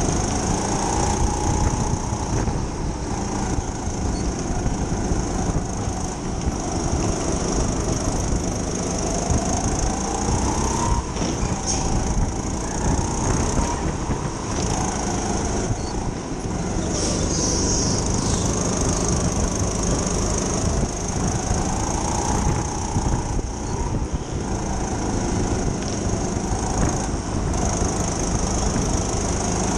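Indoor racing kart's motor running at speed, its pitch rising and falling every few seconds as the kart speeds up and slows down through the corners, over a steady high whine.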